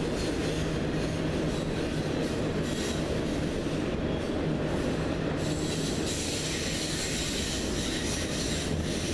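Freight train of double-stack container cars rolling steadily past below, with a continuous rumble of wheels on rail and some wheel squeal.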